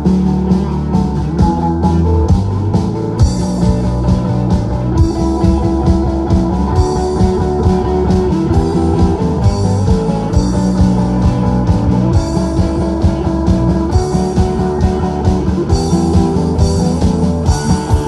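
Live rock band playing: two electric guitars, a bass guitar and drums, with sustained guitar notes over a steady drum beat.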